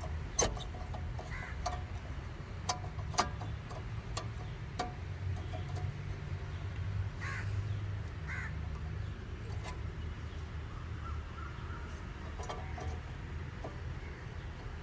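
Scattered sharp metallic clicks and clinks of tools and brake parts being handled while new rear brake pads go onto the caliper. A few short bird calls and a steady low rumble sit in the background.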